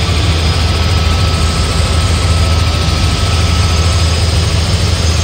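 Helicopter in steady flight heard from inside the cabin: a loud, even drone of engine and rotor under a wash of wind and airframe noise.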